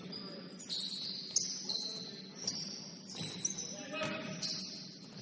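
Basketball game on a gym court: the ball bouncing with a few sharp thuds, the loudest about two and a half seconds in, and short high squeaks of sneakers on the floor.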